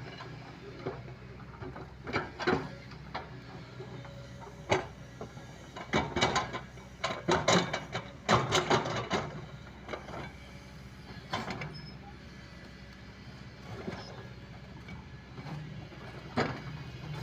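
Kobelco hydraulic excavator's diesel engine running steadily, with bursts of knocking and clattering from the machine at work, heaviest about six to nine seconds in.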